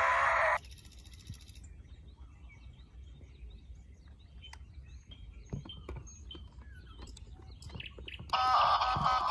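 Faint bird chirping with a few light knocks, between a loud electronic tone that cuts off about half a second in and another loud electronic sound that starts near the end.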